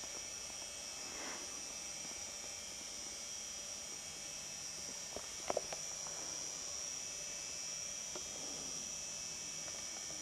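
Steady high-pitched chirring of crickets in an evening meadow, with a cluster of three or four sharp clicks about halfway through.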